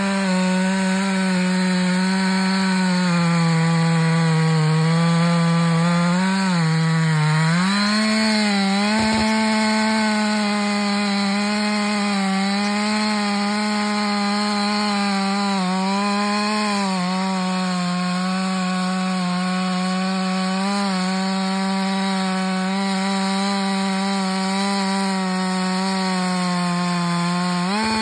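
Chainsaw cutting into the base of a large standing ash trunk, the engine held at steady high revs under load. The pitch dips briefly a couple of times about six to eight seconds in, and again near sixteen seconds, as the chain bites harder into the wood.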